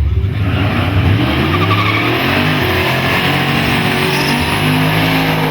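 Street-class drag cars launching and accelerating hard down a no-prep drag strip, engines loud and climbing in pitch in steps as they shift through the gears.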